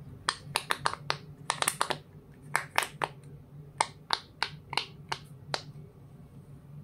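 Silicone pop-it phone case bubbles being pressed and popping under fingertips: about twenty sharp pops in quick irregular runs, stopping a little over a second before the end.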